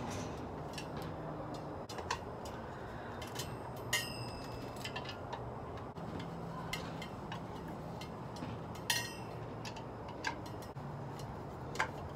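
Phillips screwdriver driving screws into a patio heater's metal base plate: irregular light metallic clicks and ticks, about a dozen, one with a brief ringing clink, over steady low background noise.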